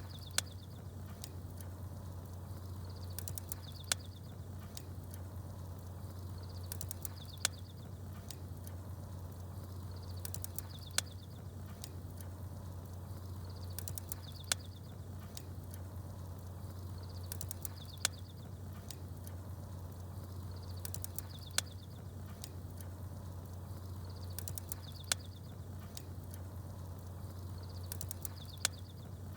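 Campfire-and-birdsong ambience. A small bird's short high chirp and a sharp fire crackle repeat at exactly even spacing, about every three and a half seconds, over a steady low rumble.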